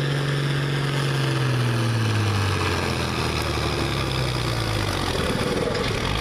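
John Deere farm tractor's diesel engine running hard while pulling a weight-transfer sled, its revs falling about two seconds in and then running on at the lower speed.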